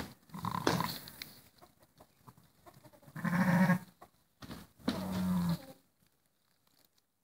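A ewe gives three low, short bleats, each under a second, over her newborn lamb as she licks it: the soft calls a ewe makes while bonding with a just-born lamb.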